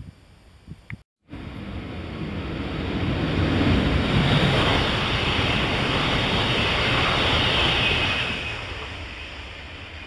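JR East E2 series Shinkansen train running through the station at speed without stopping: a rushing noise that builds from about two seconds in, is loudest through the middle and fades away near the end.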